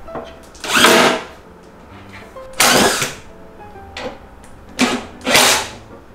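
Cordless power driver driving screws into plywood in three short whirring bursts about two seconds apart, with a brief blip just before the last one.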